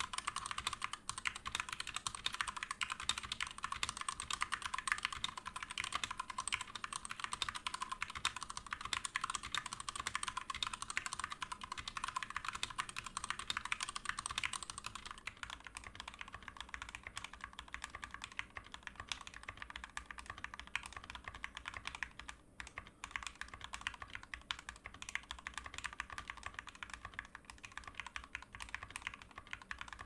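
Rapid typing on a GMMK Full Size mechanical keyboard with Gateron Red linear switches and HyperX keycaps. For the first half the switches and stabilizers are stock. From about halfway the same board is heard with its switches lubed with Krytox 205g0 and its stabilizers clipped and Band-Aid modded, and the typing is quieter.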